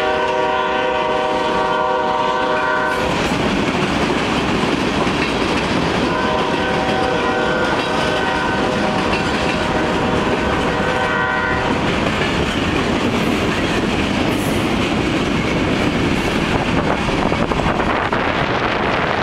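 Freight train of tank cars and covered hoppers rolling past, with steady wheel and rail noise and some clickety-clack. The locomotive's horn sounds in a long blast that ends about three seconds in, then again in a second long blast from about six to eleven seconds.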